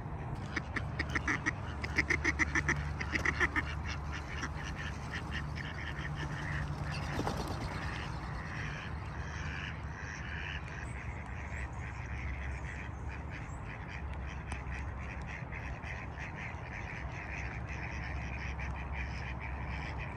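Mallard ducks quacking: a quick run of loud quacks about a second in, then softer calls, over a steady low background rumble.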